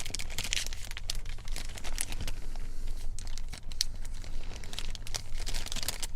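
Crinkling and rustling with many irregular small clicks: hands handling the replacement ignition switch close to the microphone.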